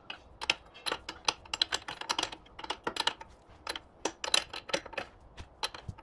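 Ratchet wrench clicking in quick runs of strokes as the oil cooler pipe fittings are tightened.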